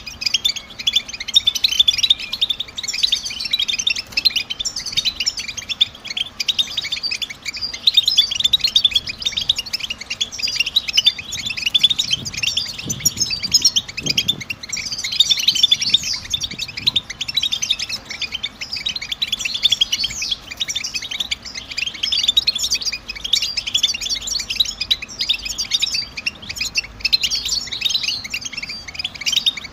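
European goldfinch twittering: a dense, unbroken stream of quick, high chirps and trills.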